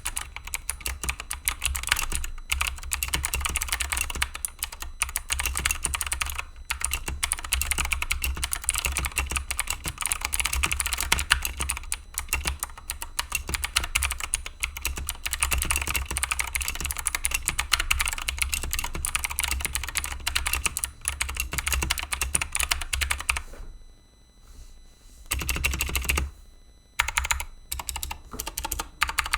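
Typing on an Akko 3084 mechanical keyboard with Akko Blue clicky switches, a fast continuous stream of sharp key clicks. About three-quarters of the way through it stops briefly, comes back in a short dense burst, then goes on as scattered keystrokes.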